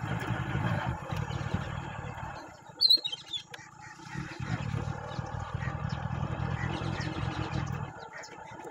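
Motorcycle engine running as the bike rides along a rough dirt track, easing off about two and a half seconds in and picking up again about four and a half seconds in, then easing off again near the end. About three seconds in there is a sudden loud sound with a high chirp.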